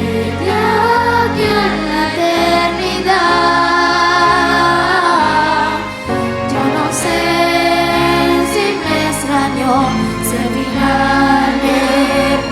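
Children's and youth choir singing a song with instrumental accompaniment.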